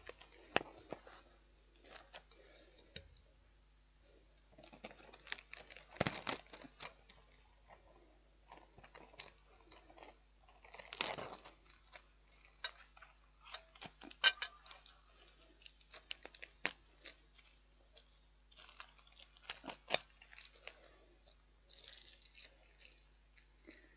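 Pierced plastic film lid being peeled off a microwaved plastic meal pot: irregular crinkling, tearing and small clicks of plastic being handled.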